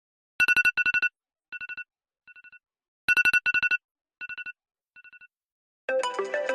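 An iPhone ringtone plays: a rapid electronic trill in two loud bursts, each followed by two fainter echoing repeats, heard twice. About six seconds in, a different, melodic ringtone begins.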